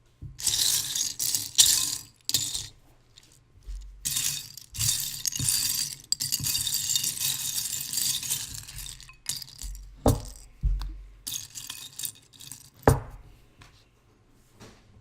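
Small plastic Lego pieces rattling and clinking in bursts, with a longer stretch of continuous clatter and two sharp knocks near the end.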